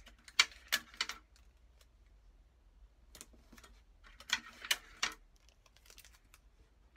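Clear sticky tape being pulled off its roll and torn, with paper handled as it is pressed onto a paper book jacket: short crackly clicks in two clusters, one about half a second in and another around four to five seconds in.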